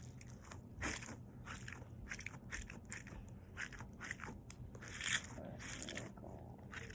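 Quiet, irregular crackling and scraping of a textured stress ball and its plastic packaging being handled, with louder crackles about a second in and about five seconds in.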